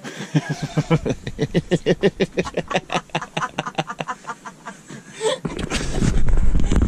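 Hearty laughter, a long run of rhythmic 'ha-ha' pulses at about six a second, lasting about five seconds. From about five and a half seconds in, wind rumbles on the microphone.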